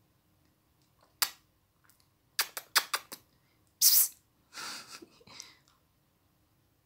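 Sharp clicks: one on its own, then a quick run of about five, followed by a loud short hiss and a softer hissy stretch.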